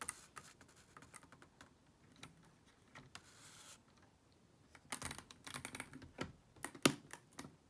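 Faint plastic clicking from a LEGO-brick film camera as its advance knob is turned to wind on the freshly loaded 35 mm film. About five seconds in come louder clicks and knocks of LEGO plastic as the camera's back door is pressed shut, the sharpest near the end.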